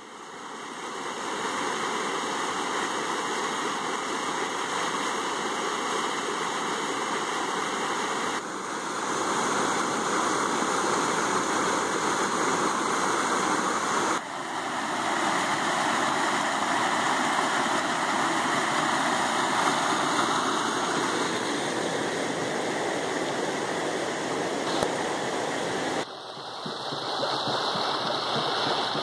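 Creek water rushing over a low-head concrete dam: a steady rush that fades in at the start and dips briefly a few times where the shots change.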